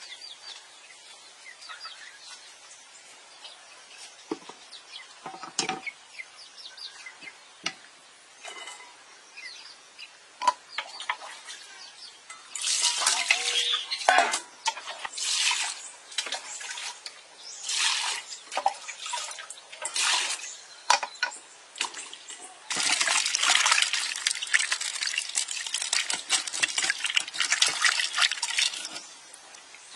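A cleaver knocking through a green papaya onto a wooden board, with a few scattered knocks. About halfway in, water is ladled out in several short splashes. Near the end comes a longer run of splashing as hands scrub the papaya halves in a steel basin of water.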